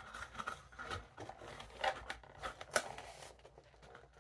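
Packaging being handled: rustling with a few sharp clicks and taps, the loudest about two and three seconds in.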